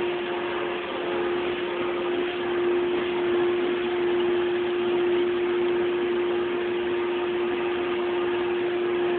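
Electric blower of an inflatable bounce house running steadily: a constant hum over a steady rush of air.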